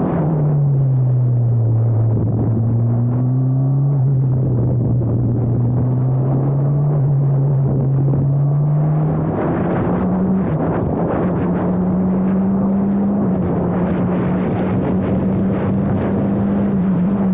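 Formula Abarth single-seater's turbocharged four-cylinder engine running on track. The note drops right at the start, stays low and slowly climbs, steps up about halfway through and holds steady, then starts to fall again at the very end.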